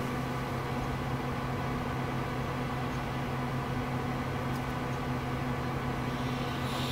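A steady low hum over an even hiss, unchanging throughout. Just before the end a brief, breathy rush of higher noise comes in.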